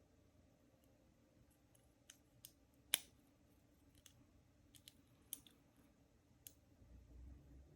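Lock pick and tension wrench clicking faintly in the keyway of an Ace 50mm laminated padlock while its pins are set: about eight scattered sharp metal clicks, the loudest about three seconds in.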